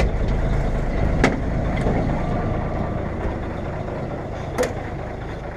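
Mack B61 dump truck's diesel engine idling steadily, with two sharp metallic clanks, one about a second in and one near the end.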